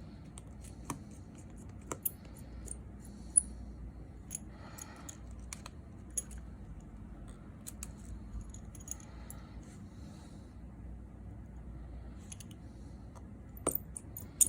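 Scattered small clicks and light metallic ticks of precision repair tools and tiny phone parts being handled as an iPhone 6s Plus's front camera assembly is put back together, over a low steady hum. One sharper click stands out about three seconds in.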